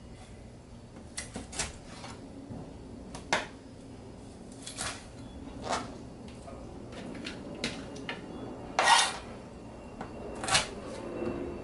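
Knife knocking on a cutting board as whole chicken wings are cut apart at the joints: irregular sharp knocks, about a dozen, the loudest about nine seconds in.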